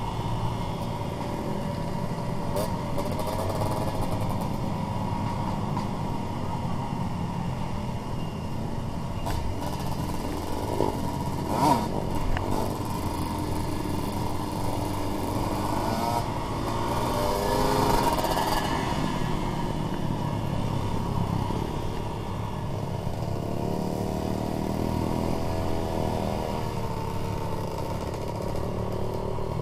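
Dirt bike engines running while riding a trail, heard close from a bike-mounted camera, the pitch rising and falling with the throttle, most clearly just past halfway and again a little later. A few sharp knocks about twelve seconds in, the loudest moment, like the bike jolting over the rough track.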